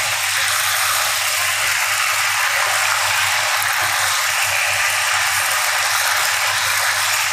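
Chicken pieces sizzling steadily as they fry in hot ghee in a pan.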